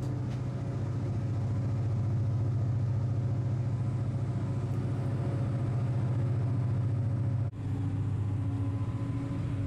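A high-speed passenger ferry's engines drone steadily under a hiss of rushing water and air, heard from inside the cabin. The sound cuts out briefly about three-quarters of the way through and then resumes with the drone a little lower in pitch.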